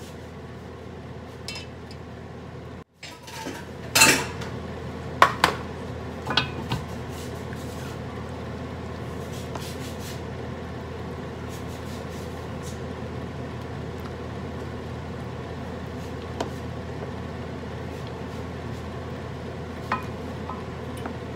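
A spoon stirring a pot of simmering soup, knocking a few times against the stainless steel pot's side about four to six and a half seconds in, over a steady hiss of the broth at a simmer.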